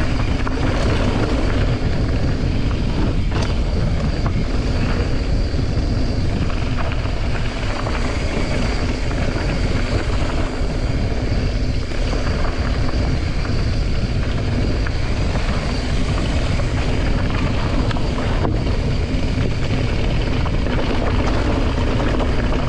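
Mountain bike rolling fast down a gravel and dirt trail: steady wind rush over the bike-mounted camera's microphone mixed with the rumble and rattle of the tyres and bike over loose stones.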